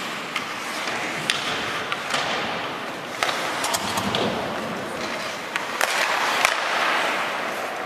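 Ice hockey play: skate blades scraping across the ice, with sharp clacks of sticks and puck scattered throughout.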